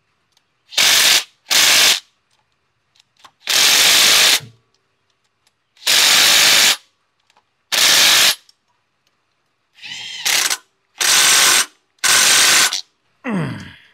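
Power tool running the fasteners of a Subaru Sambar rear engine mount on and tight, in about eight short bursts of half a second to a second each, with pauses between.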